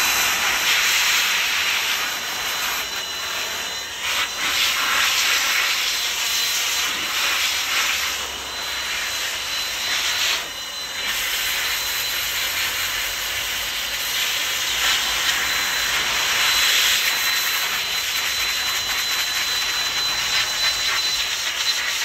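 Electric DataVac-type air duster blowing water and brake cleaner off freshly washed PC components to dry them: a steady rush of air with a constant high motor whine, dipping briefly a few times as the nozzle moves.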